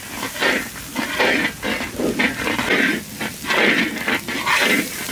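Wooden spatula stirring and scraping a spice paste around a large iron karahi, in rhythmic strokes about twice a second.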